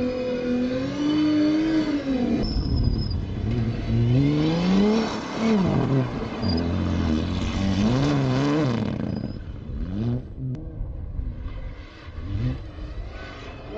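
Rally vehicle engine running under load, its revs climbing and dropping again and again as it accelerates and shifts through the gears, then fading and quieter near the end with a single sharp click.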